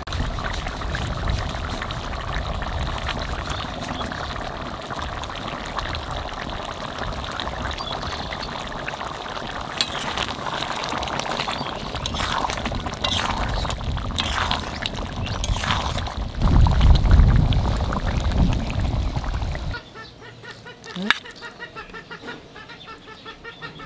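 Chicken curry simmering and bubbling in an iron karahi, with occasional scrapes and clinks and a louder low rumble for a few seconds. Then, after a sudden drop in level, a metal spoon clinks rapidly against a steel bowl while mixing food.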